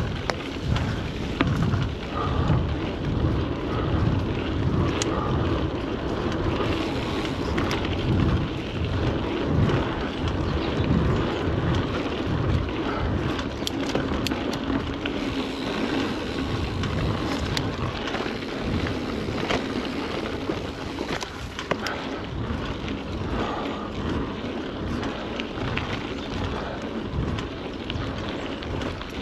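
Mountain bike riding a dirt trail: steady wind buffeting on the microphone with scattered clicks and rattles from the bike over rough ground.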